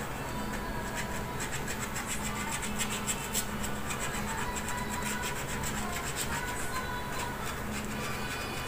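Scratching the silver coating off a Go Bananas scratch-off lottery ticket, a rapid run of short scraping strokes.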